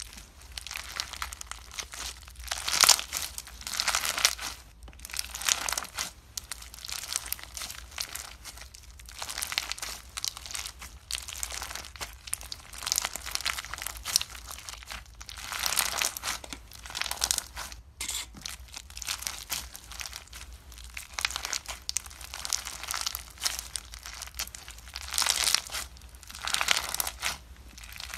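Clear bead slime packed with plastic pony beads being squeezed and kneaded by hand, giving a crunchy crackle and click of beads grinding together in the sticky slime. The crackling comes in repeated swells with each squeeze.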